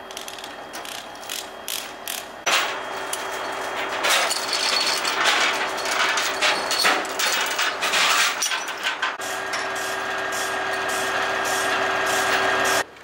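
Steel tracks of an M113 armoured personnel carrier clanking and rattling as it moves on the trailer deck, with a steady engine hum underneath. The sound changes abruptly a few times.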